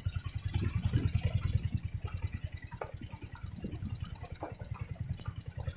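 Motorcycle engine running at low speed with a rapid, even low pulsing, with a few short knocks and rattles from riding over a rough dirt track.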